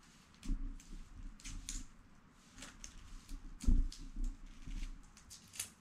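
Hard-boiled egg being peeled by hand: irregular small crackles and clicks of the shell breaking and coming away, with a few duller knocks, the loudest a little under four seconds in.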